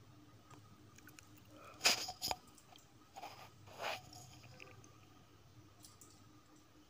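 Small plastic glue bottle handled and squeezed: two sharp clicks about two seconds in, then two softer crackling squeezes about a second later.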